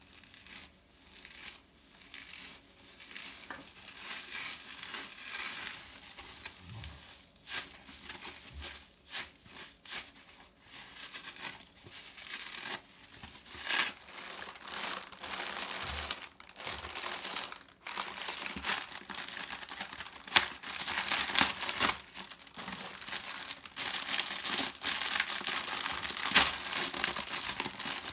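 Thin plastic sponge packaging crinkling and rustling as new sponges are handled and unwrapped, louder and denser in the second half. Softer scratchy rubbing of a dry foam sponge in the first half.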